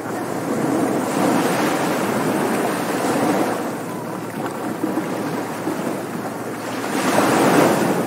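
Ocean surf: waves breaking and washing up a sandy beach. The wash swells about a second in, eases, and swells again near the end.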